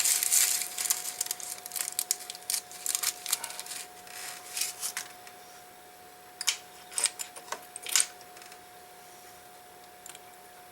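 Watch paper rustling and crinkling as it is wiped over an enamel watch dial for about five seconds, then a few light, sharp clicks.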